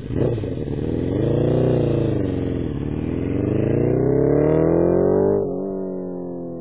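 MV Agusta F4 750's inline-four engine revving hard as the motorcycle accelerates, its pitch climbing and dipping once at a gear change. About five and a half seconds in, the pitch and loudness drop suddenly as it passes by, then it fades with a falling tone.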